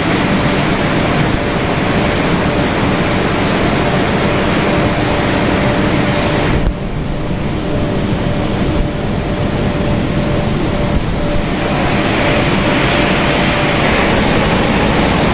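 Snack pellet extrusion line machinery running: a loud, steady mechanical noise with a thin, constant hum tone. About seven seconds in it turns abruptly duller and slightly quieter, then grows brighter again in the last few seconds.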